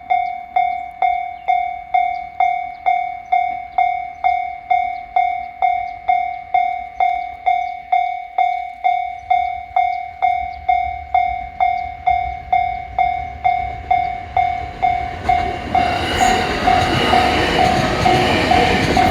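Japanese level-crossing warning bell dinging steadily about twice a second. A JR East E501 series electric train approaches with a low rumble that builds, then passes loudly from about three-quarters of the way through, its running noise all but covering the bell.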